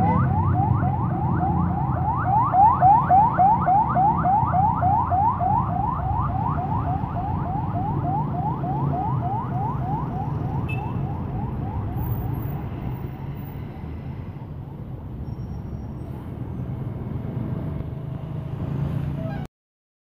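An electronic siren yelping in fast, even pitch sweeps, about four a second, fading away about halfway through, over the steady rumble of street traffic. The sound cuts off suddenly near the end.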